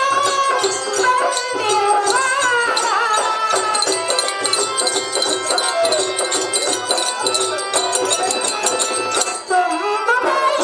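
Traditional Kannada folk-theatre stage music: a wavering melody line over a steady low drum beat, with a metallic jingling running through it.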